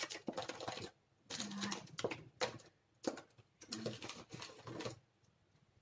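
Small cosmetic items being rummaged through and knocked together: quick runs of clicks and rustles in three bursts, each a second or two long.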